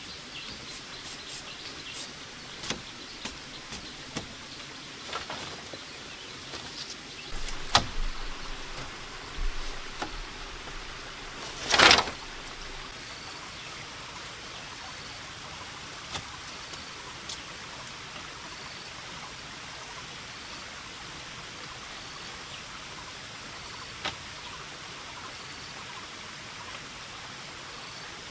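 Split bamboo strips knocking and clicking against bamboo poles as they are woven into a bamboo wall, with one loud short clatter about midway. After that only a few light knocks over a steady outdoor background, with a faint high chirp repeating about every second.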